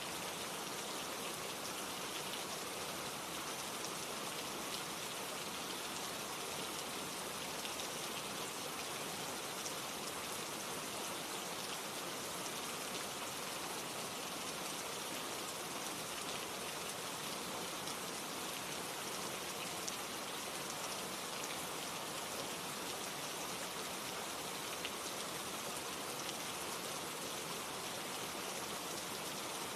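Steady rain falling, a dense even hiss with scattered raindrop patter, processed as an 8D audio track so it seems to move around the listener.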